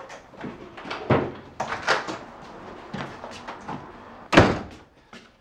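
A wooden door being knocked and banged: a run of separate thuds and knocks of varying strength, the loudest thump about four and a half seconds in.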